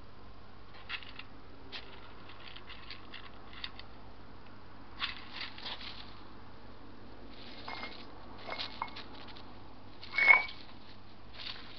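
European hedgehogs scuffling and scurrying about: scattered soft clicks and rustles, with a short, much louder burst about ten seconds in.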